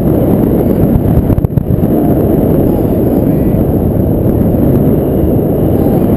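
Steady wind rushing over an action camera's microphone during a tandem paraglider flight, with a brief drop about a second and a half in.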